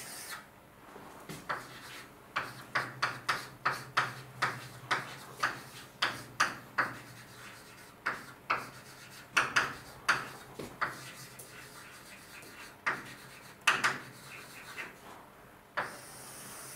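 Writing on a lecture-room board: a quick run of short, sharp strokes and taps, about three a second for several seconds, then scattered strokes.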